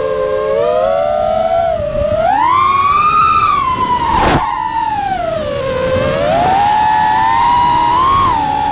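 FPV racing quadcopter's brushless motors whining, the pitch sliding up and down with the throttle. About four seconds in there is a brief rush of noise.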